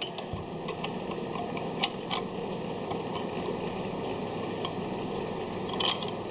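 A few light clicks and knocks of a steel patch plate being handled and pulled into place, over a steady background hiss; one click about two seconds in and a short cluster near the end.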